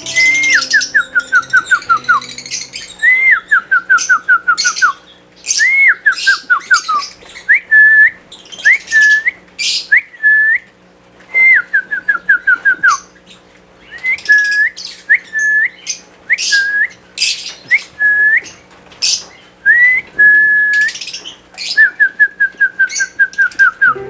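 Lovebirds chattering with shrill chirps over a loud, clear whistle repeated in phrases. Each phrase is a quick rise and then a run of short falling notes, and in the middle stretch the whistle gives single short rising hooks instead.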